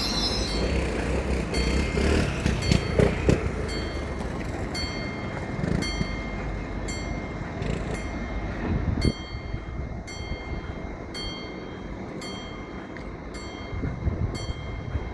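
Train running on the rails: a steady rumble with a faint steady whine, a few louder knocks early on, and from about a third of the way in a regular clicking a little more than once a second.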